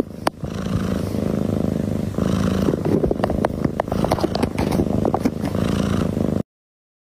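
Domestic cat purring loudly right at the microphone, in a steady pulsing rumble, with scattered short clicks and taps over it. The sound cuts off abruptly near the end.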